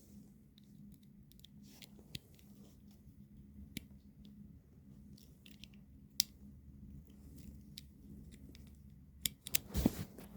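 Faint scattered clicks and scrapes of hands and a tool working at the screws of a metal elevator push button, with a sharper click about six seconds in and a run of louder clicks and knocks near the end.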